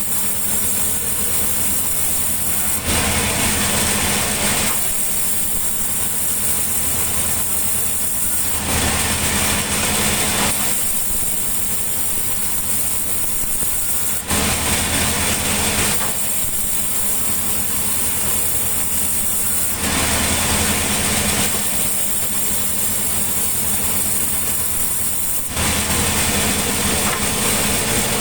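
Sawmill machinery running: a steady engine hum, with a louder, hissing noise coming in for about two seconds at a time, five times, at regular intervals.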